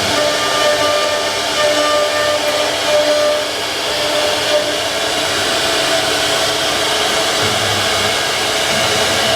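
Wood CNC router's spindle running and cutting wood: a loud, steady whine and hiss, with faint tones that come and go as the bit's load changes.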